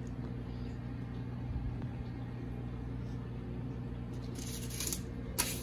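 Steady low mechanical hum in a small room, with a few quick crinkles of the plastic packet of fishing swivels being handled near the end.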